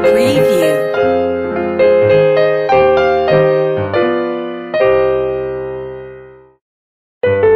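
Background piano music playing single notes and chords that ring and decay. A last chord fades out about five seconds in, there is a moment of silence, and the music starts again near the end. A short sliding sound, like a transition effect, passes in the first second.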